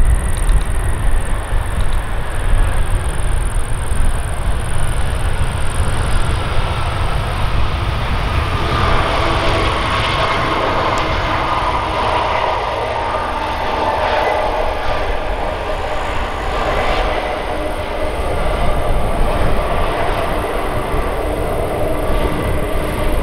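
Boeing 747-400 freighter's four turbofan engines in reverse thrust during the landing rollout: a steady rumbling jet noise with several whining tones that slowly fall in pitch. The whine grows stronger about nine seconds in.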